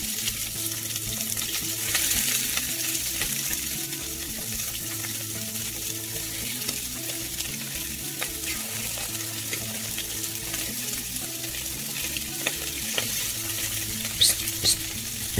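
Raw rabbit pieces searing in hot olive oil in a non-stick frying pan: a steady sizzle with scattered crackles as more pieces are laid in.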